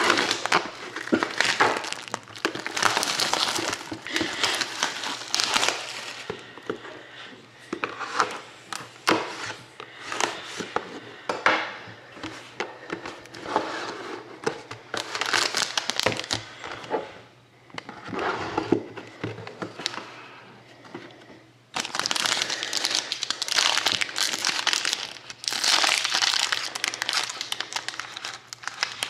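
Plastic shrink wrap crinkling and crackling in irregular bursts as it is picked at and peeled off a sealed trading-card box. Near the end, a steadier run of crinkling as a foil card pack is handled.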